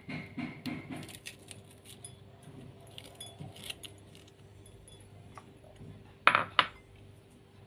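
Kitchen knife cutting a vegetable held in the hand, quick light strokes about three or four a second at the start. About six seconds in come two loud sharp knocks of the knife on a wooden cutting board.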